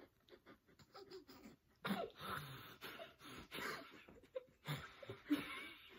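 Muffled laughter and breathing through a mouth stuffed with marshmallows, in breathy bursts starting about two seconds in.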